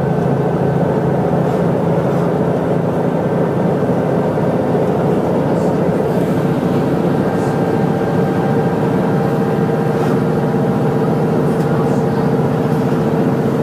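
Mercedes-Benz O405GN2 articulated city bus under way, heard from inside the cabin: its engine runs steadily with a low drone and a steady whine, along with road noise.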